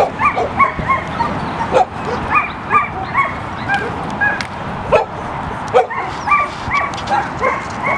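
Several dogs barking together: a continuous stream of short, high-pitched barks, several a second, overlapping at different pitches.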